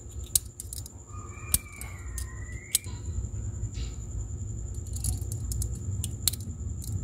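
Scissor blade scraping the enamel coating off the end of a thin magnet wire, heard as small irregular metallic clicks and scratches, with a steady low hum underneath.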